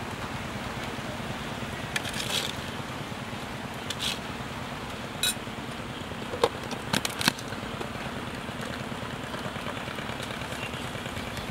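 Plastic handling: a few short crinkles and clicks from a plastic bag and plastic container lids being handled, over a steady background hiss.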